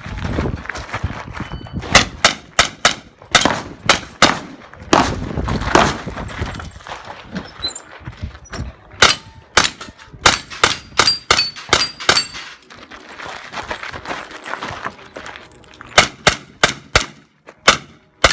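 Pistol shots fired in quick strings of several shots each, with short gaps between the strings. A few shots are followed by a short, high metallic ping, typical of hits on steel targets.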